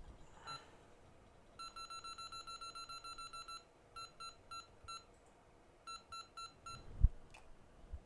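Hot air rework station beeping as its buttons are pressed to set it: a quick run of about five short beeps a second, then two groups of four. A single low thump near the end.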